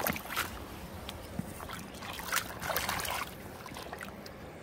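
A river stone being rinsed by hand in shallow river water: irregular splashing and sloshing, heaviest about two to three seconds in.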